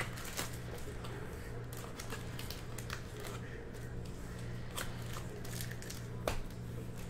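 Foil-wrapped Donruss Optic football card packs and their cardboard hobby box being handled as the stack of packs is lifted out: scattered light rustles and clicks, with one sharper knock near the end, over a steady low hum.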